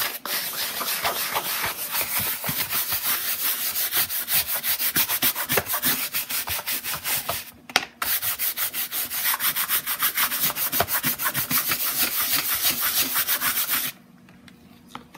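Bristle brush scrubbing the coated canvas of a vintage Louis Vuitton toiletry case with water and saddle soap, in quick, even back-and-forth strokes of about five a second. The scrubbing breaks off briefly a little past halfway and stops about a second before the end.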